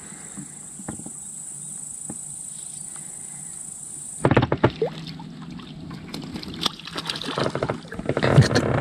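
A steady high-pitched hiss that stops suddenly about four seconds in. It is followed by close water sloshing and splashing, mixed with scattered knocks and clicks.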